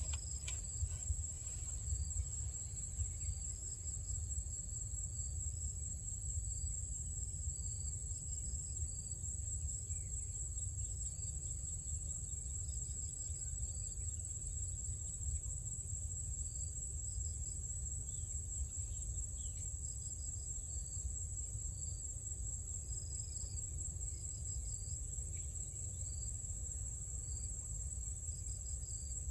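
Steady high-pitched insect chorus with short repeated chirps over it, above a constant low rumble.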